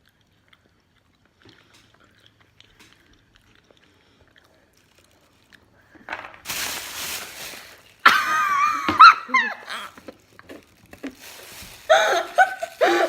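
Near silence for about six seconds, then a breathy rush of noise followed by a loud, wavering vocal sound from a person reacting to what she is chewing, with some talk near the end.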